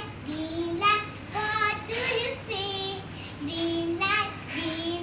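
A young girl singing a children's song unaccompanied, in short phrases of held notes that step up and down in pitch.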